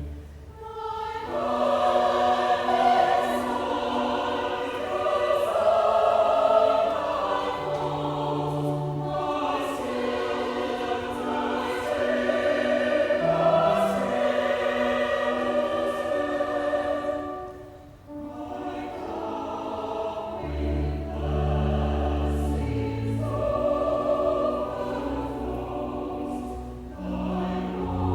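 Choir singing sustained chords with low held bass accompaniment, pausing between phrases about half a second in and again around 18 seconds.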